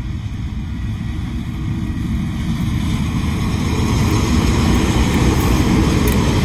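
Two KiwiRail diesel-electric locomotives hauling a freight train, a low engine rumble growing steadily louder as they approach and pass close by.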